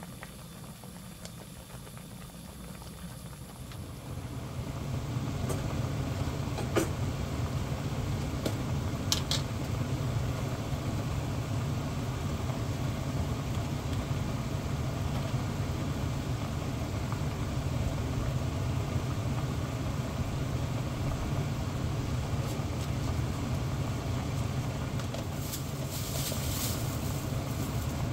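A pot boils with a faint bubbling hiss for the first few seconds. From about four seconds in, a steady low hum sets in and carries on. A few light clicks and knocks come as ingredients go into the pot.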